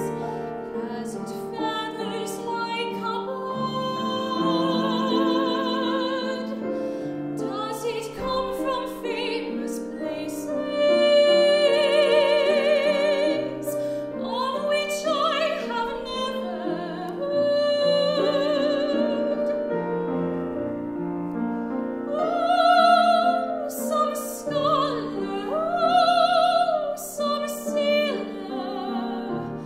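A woman singing a classical art song in trained operatic style with vibrato, accompanied by a grand piano. Her long held notes swell louder in places.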